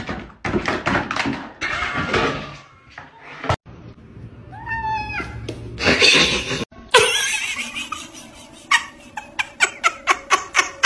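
Domestic cats making calls amid scuffling and knocks, with a short repeated falling call near the middle and a run of quick taps, about four a second, near the end.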